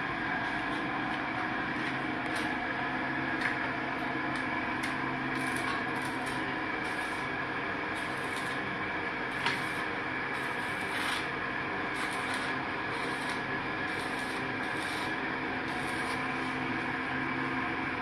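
Steady mechanical hum of running heat pump units, several held tones over a low drone, with short high hissing bursts coming irregularly about once a second.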